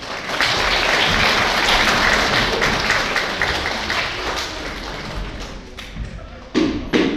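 Audience applauding for about six seconds, then dying away; a loud voice starts just before the end.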